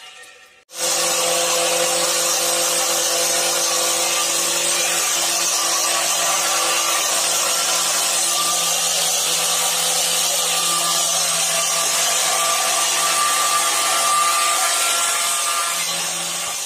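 Angle grinder fitted with a homemade sheet-metal blower fan, running at full speed and blowing air. It makes a steady motor whine with a strong rush of air, starting abruptly about a second in and easing slightly near the end.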